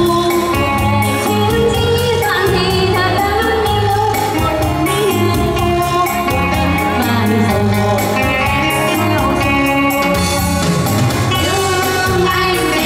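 Female vocal trio singing a Vietnamese song into microphones over instrumental accompaniment with a steady beat.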